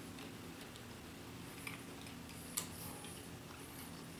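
Quiet room tone with a faint steady low hum, broken by two small clicks, one about one and a half seconds in and a sharper one about two and a half seconds in.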